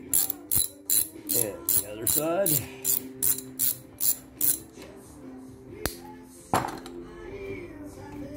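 Socket ratchet clicking in a quick, even run, about four clicks a second, as it backs out a front brake caliper bolt. The clicking stops about four and a half seconds in, then comes one sharp click and a knock.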